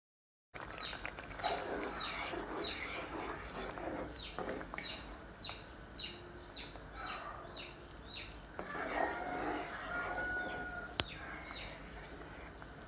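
Chickens calling: a short, high, falling peep repeated about twice a second, with lower clucking underneath.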